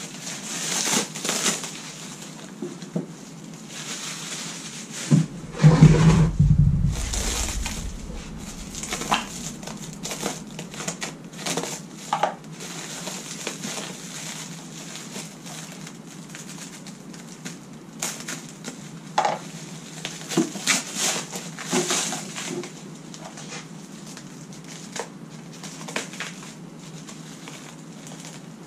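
Plastic shrink wrap and paper packing being torn and crumpled by hand, an irregular crinkling and crackling. About five to six seconds in there is one loud, deep thump.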